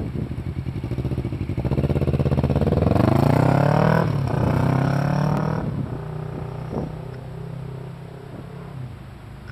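Sport motorcycle pulling away from a standstill: the engine pulses at low revs, then the revs climb steadily and drop sharply about four seconds in at a gear change. The engine sound then fades as the bike rides off down the track.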